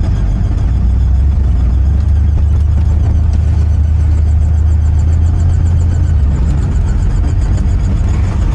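Cabin sound of a 1973 Cadillac Coupe DeVille's 472 V8 being driven: a steady low engine and road drone. From about six seconds in, a high, rapidly repeating squeal joins it from the speedometer cable.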